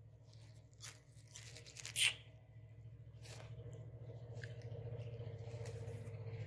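Roti being torn by hand: scattered rustling and tearing, with one sharp tear about two seconds in, over a steady low hum.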